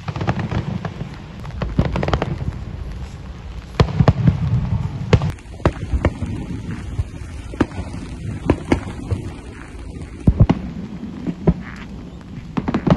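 Aerial fireworks bursting: an irregular string of sharp bangs over a low rumble.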